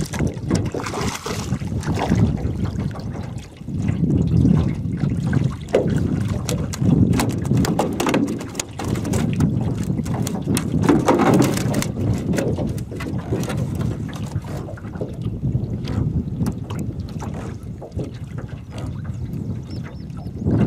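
Wind rumbling on the microphone over water lapping at an aluminum jon boat, with scattered sharp knocks and clicks as a trotline is pulled in and catfish are handled in the boat.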